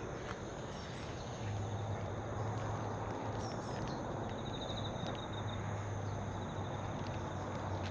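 Outdoor park ambience: insects trilling in quick pulses, with a brief bird chirp, over a steady low hum that comes in about a second and a half in.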